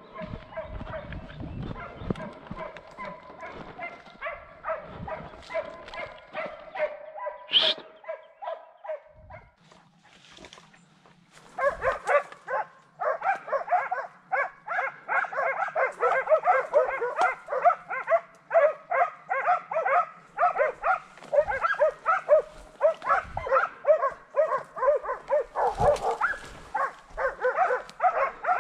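Hunting dogs baying on wild boar: a steady pitched howling for the first several seconds, then from about twelve seconds in, loud continuous barking, several barks a second.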